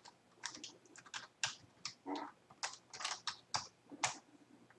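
Computer keyboard being typed on: an uneven run of short key clicks as a name is keyed in.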